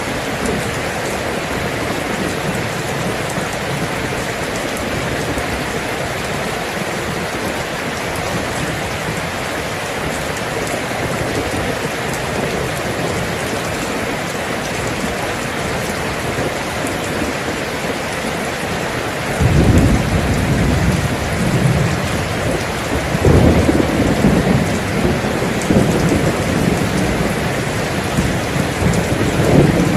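Steady rain falling. About two-thirds of the way in, a deep thunder rumble breaks in and rolls on, swelling again a few seconds later and near the end.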